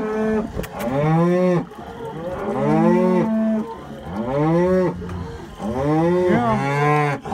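Penned calves bawling, about four long moos one after another, some overlapping near the end. They are unhappy at being penned.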